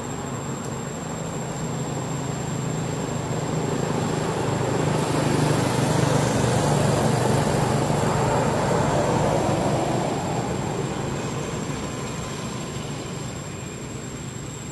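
A motor vehicle driving past, its engine hum and road noise swelling to their loudest around the middle and then slowly fading.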